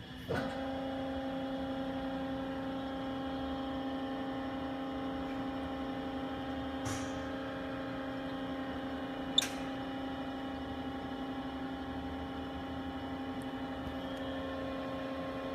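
Takisawa EX108 CNC lathe standing powered on, giving a steady even hum that starts just after the beginning, with one sharp click about nine seconds in.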